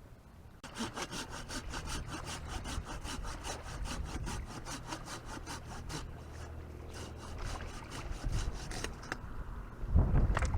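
Hand saw cutting through wood with quick, even back-and-forth strokes, stopping a little before the end, followed by a low thump.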